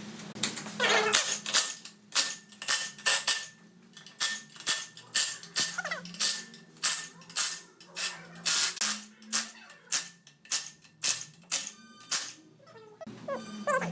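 A run of sharp, short metallic clacks, about two a second, from a hand tool working the bolts on an aluminium gearbox case.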